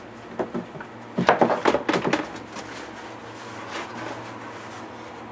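Knocks and scraping from the laptop's box packaging being handled: two light knocks, then a quick cluster of louder knocks and clatter lasting about a second.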